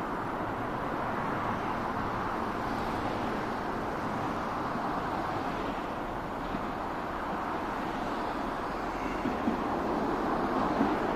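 Steady road traffic noise from a multi-lane street, joined near the end by a Shizuoka Railway 1000 series electric train approaching. Its running noise grows, with a few sharp clacks.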